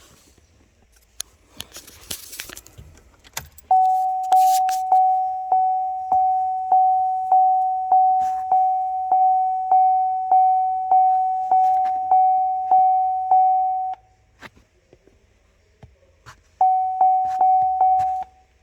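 Holden VE Commodore's in-car warning chime sounding a repeated single-tone ding, about one and a half a second. It runs for about ten seconds, stops, then chimes four more times near the end, with a few clicks and rustles before it starts.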